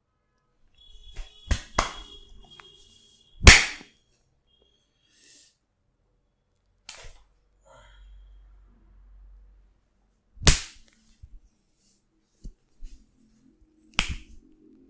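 A barber's head and body massage: a series of sharp smacks and cracks at irregular spacing, the loudest about three and a half seconds in, with fainter taps between them.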